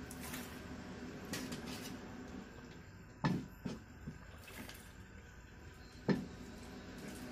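A spatula knocking against a steel pot a few times, two knocks louder than the rest, amid the soft wet sound of mushrooms being stirred and turned in the pot.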